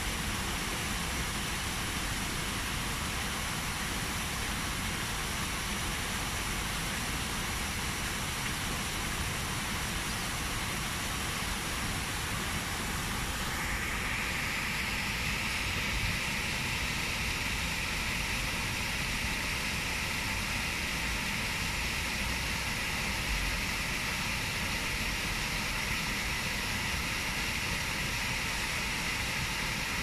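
Waterfall rushing and splashing into a pool, steady throughout. About thirteen seconds in the sound shifts to a brighter, hissier rush.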